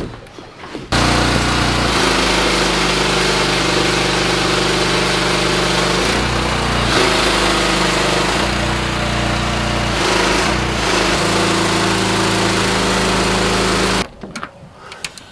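Small gas engine on a seed tender running steadily, driving the belt conveyor that carries seed up into the planter box. It starts abruptly about a second in, its pitch shifts twice, and it cuts off near the end.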